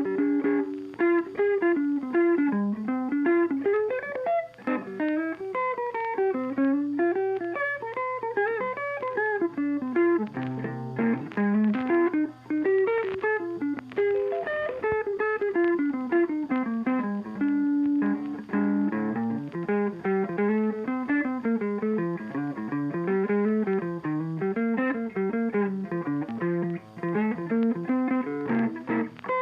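Background music: a guitar-led instrumental track with a melody of plucked notes.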